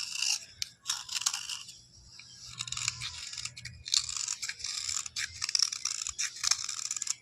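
Rough scraping at a coated bar's surface, a run of fast scratching strokes that pauses briefly about two seconds in and again near the four-second mark before running on.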